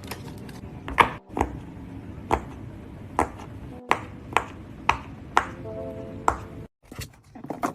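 Silicone push-pop fidget toy being pressed, giving sharp, irregular pops about once a second over soft background music.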